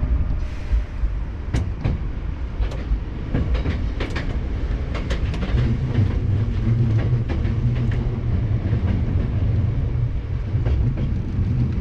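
Hankyu 7000 series electric train running, heard from inside the car: a steady low rumble with sharp wheel clicks over rail joints scattered throughout. A low hum joins about halfway through.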